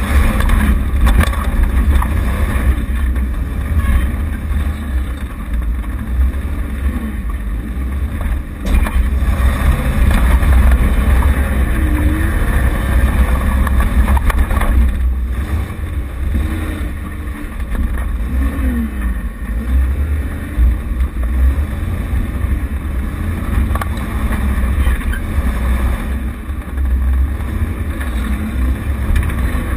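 Off-road vehicle's engine running as it drives over a rough track, its note rising and falling with the throttle, under a heavy low rumble, with a few sharp knocks.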